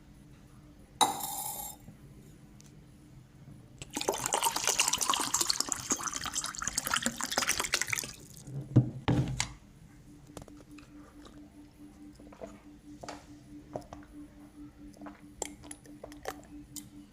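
Water running for about four seconds, then a knock, followed by faint scattered ticks over a low steady hum.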